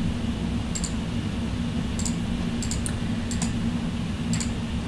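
Scattered light clicks at a computer keyboard and mouse, about seven of them, some in quick pairs, over a steady low electrical hum.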